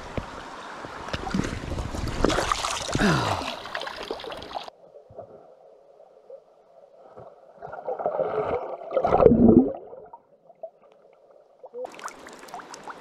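Creek water splashing and sloshing as an action camera is plunged in; about five seconds in the sound turns dull and muffled as the microphone goes underwater, with gurgling bursts of bubbles a few seconds later, and the open-air sound of the stream comes back near the end as the camera surfaces.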